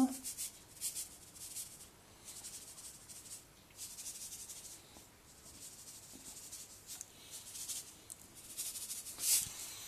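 Salt shaken from a canister onto blocks of feta cheese on puff pastry: several bursts of fine, hissing rattle, with short pauses between the shakes.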